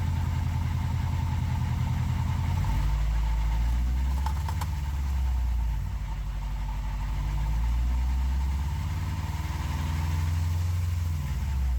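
Subaru Forester XT's turbocharged flat-four engine running steadily: a deep, even rumble that shifts lower about three seconds in and eases and swells a few times.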